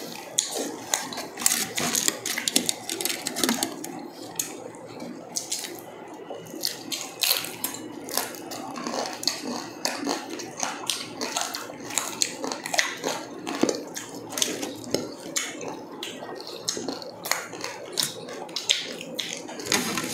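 Close-up eating sounds of roast pork belly and chicken eaten by hand: chewing, quick irregular crunches and clicks, and wet mouth smacks.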